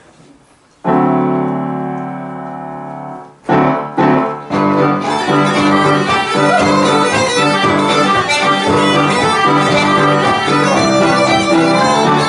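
Traditional Irish band starting a reel. A held chord is followed by two short chords, and the tune comes in in full from about four and a half seconds in.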